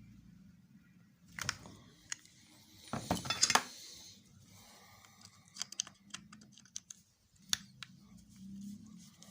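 Scattered clicks, taps and scraping of small hard objects being handled, with a louder cluster of clattering about three seconds in, over a faint low hum.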